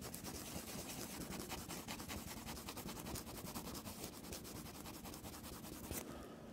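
Quick, rhythmic scrubbing strokes on a printed circuit board as flux residue is cleaned off a freshly soldered trace repair, stopping about six seconds in.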